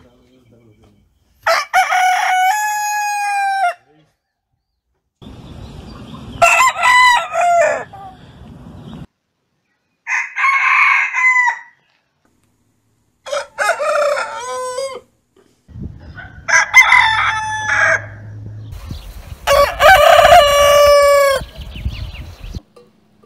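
Several different roosters crowing one after another: about six separate crows, each a loud cock-a-doodle-doo lasting one to two seconds, with short silences between them.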